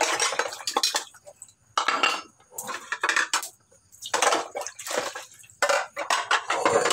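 Ceramic bowls and plates clattering and spoons clinking as dishes are washed by hand in a sink basin, in a run of short bursts with brief pauses between them.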